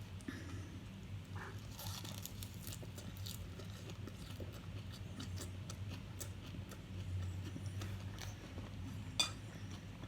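Quiet eating sounds: scattered light clicks and clinks of cutlery against dishes, with one sharper click about nine seconds in, over a low steady hum.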